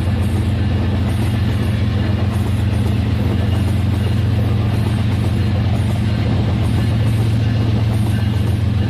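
Rail King toy train running on its track: a steady motor hum that does not change.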